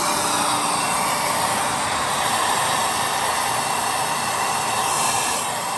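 A 50 hp rotary screw air compressor is running, with a steady loud hiss of compressed air and condensate spraying from a drain valve opened at the base of its cabinet, a rag held over the outlet.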